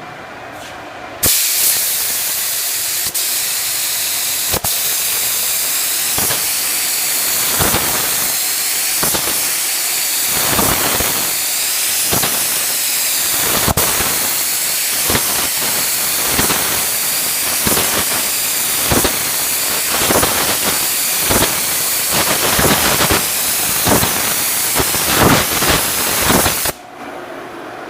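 Compressed-air paint spray gun hissing steadily while spraying polyester primer. It starts suddenly about a second in and cuts off suddenly near the end. From about a quarter of the way through, the hiss swells and fades roughly once a second.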